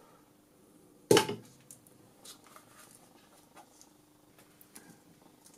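A round metal cover set down on the workbench with a single sharp clank about a second in, followed by light clicks and taps of the stacked circuit-board assembly being handled.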